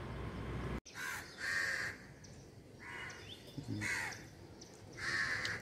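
Crows cawing: about five harsh caws spaced a second or so apart.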